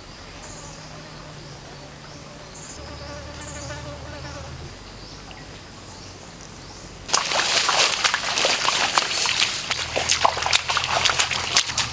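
Insect buzzing over a quiet forest background, then about seven seconds in, bare feet splashing and squelching quickly through shallow muddy water, much louder than the buzzing.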